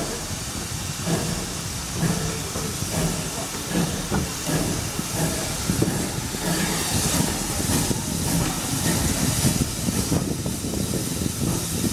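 GWR 57xx 0-6-0 pannier tank locomotive pulling its train away, heard from a carriage window: a run of exhaust chuffs over a steady hiss of steam.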